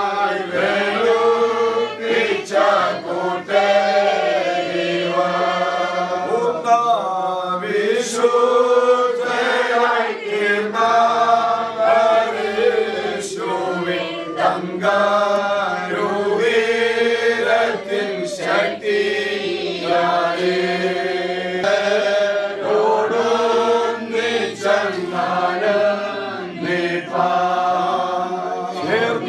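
Voices singing a slow Christian funeral hymn together, the sung lines rising and falling over a steady held low note.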